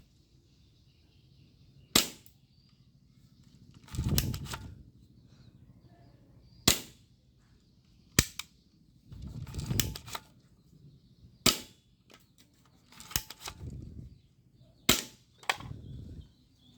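Toy airsoft gun firing single shots at lined-up targets: about five sharp cracks a few seconds apart, with longer, lower clattering sounds between them.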